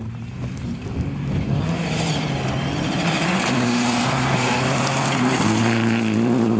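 Rally car engine revving hard as it comes closer on a gravel stage, growing louder, with a gritty hiss of gravel thrown up by the tyres. The engine note shifts about five seconds in.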